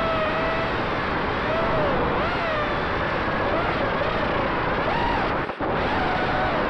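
Racing quadcopter's four Emax RS2205 2600KV brushless motors spinning GemFan 5050 tri-blade props, whining and rising and falling in pitch with the throttle, heard from the onboard camera. The sound drops out briefly about five and a half seconds in.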